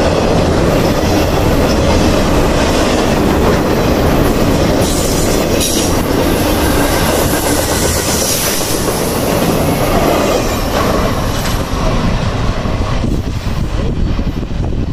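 Freight train cars rolling past, wheels clacking over the rail joints with some wheel squeal; the sound thins a little near the end.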